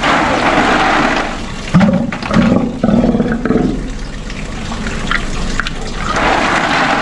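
Steller sea lion at close range taking ice from a hand: loud breathy hissing near the start and again near the end, with three short low grunts in quick succession in the middle.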